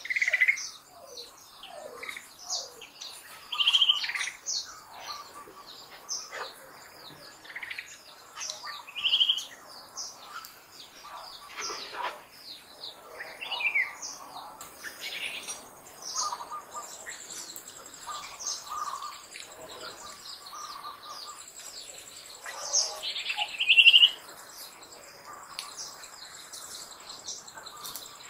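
Birds chirping and calling all around, with a few louder calls spaced several seconds apart. A steady high buzz joins a little past halfway.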